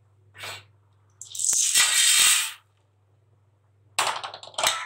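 Dry-roasted chana dal poured out of a metal kadai onto a steel plate: a loud rattling rush of hard lentils lasting about a second and a half, with a few sharp clinks. More clattering comes near the end as the last lentils are tipped out. A low steady hum runs underneath.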